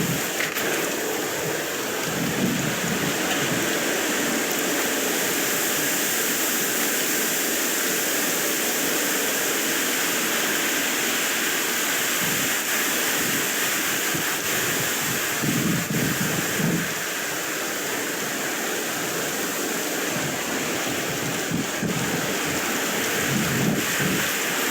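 Wind blowing across the microphone: a steady rushing rumble with low gusts swelling now and then.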